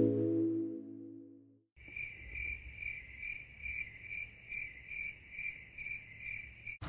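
Background music fading out, then an insect chirping in steady even pulses, about two and a half a second.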